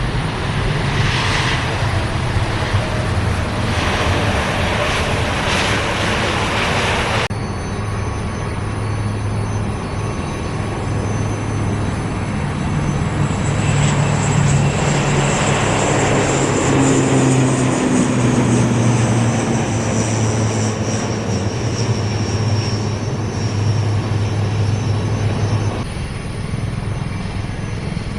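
Airplane engines running: a steady low drone with a high whine that slowly falls in pitch. The sound changes abruptly about seven seconds in and again near the end.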